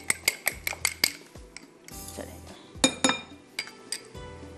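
An egg being beaten in a small glass bowl, the metal utensil clinking quickly against the glass at about five or six strokes a second, stopping about a second in. A little before three seconds in comes a single louder ringing clink of metal on a glass bowl.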